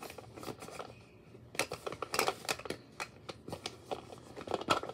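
Irregular rustling and clicking of small objects being handled close to the microphone, in two busier spells.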